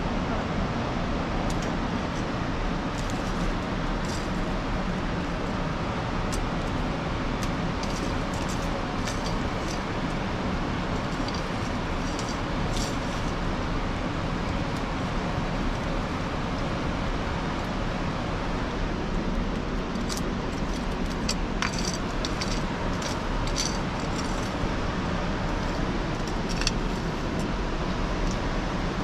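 Open wood fire crackling, with scattered sharp clicks and light metal clinks over a steady rushing noise.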